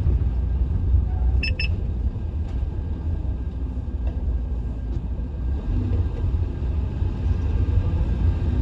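Steady low rumble of a vehicle on the road, with two short electronic beeps about one and a half seconds in.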